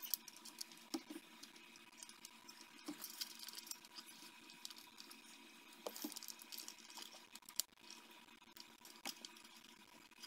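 Faint, irregular clicks and light rattles of small plastic parts and a control cable being handled as the heater-control mechanism is taken apart by hand, with a faint steady high tone underneath.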